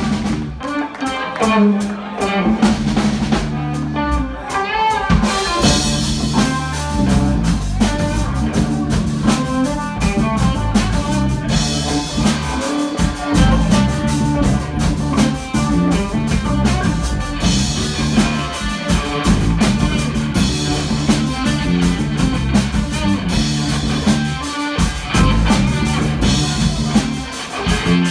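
Live band playing an instrumental passage with guitar and a drum kit, the drums keeping a steady beat under a moving guitar line.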